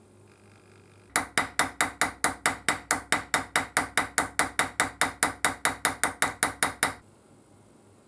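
A steel punch tapping rapidly into an aluminium plate to give a textured finish: about two dozen sharp metallic taps, evenly spaced at about four to five a second, each with a brief ring. They start about a second in and stop just before the end.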